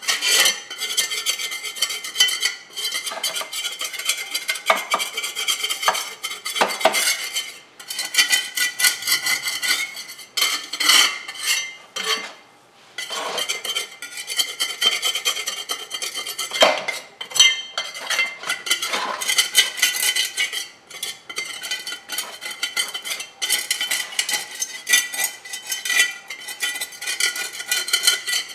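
A hand tool scraping and scratching at dust and dried grime on a floor, in quick irregular strokes with small clinks. There is a brief pause about twelve seconds in.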